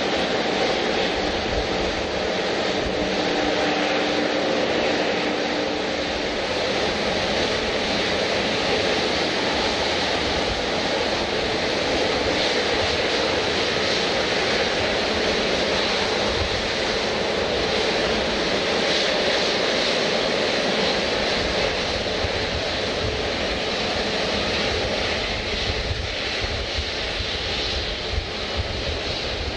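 Airliner engines running at an airport: a steady, loud rush of noise that holds level without a clear swell or fade.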